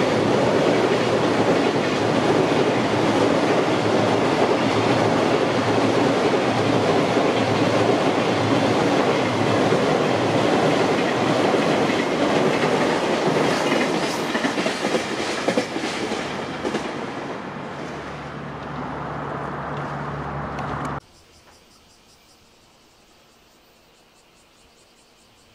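Long container freight train rolling across a railway bridge: a steady loud rumble of wagon wheels with clickety-clack over the rail joints and a run of sharper clicks as the last wagons pass. The rumble fades, then cuts off abruptly about 21 s in to a faint quiet background.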